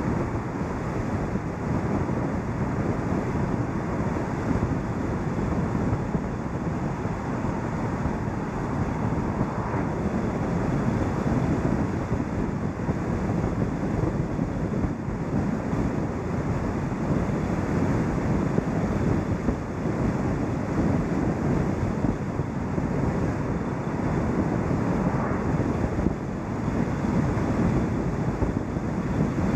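Steady rushing wind over the microphone mixed with the tyre and road noise of a car driving along at speed.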